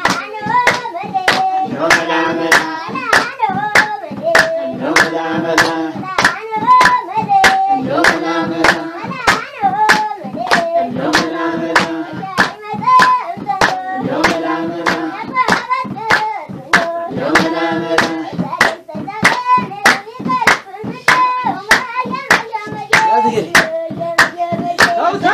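Voices singing a song over steady rhythmic hand clapping, about two claps a second.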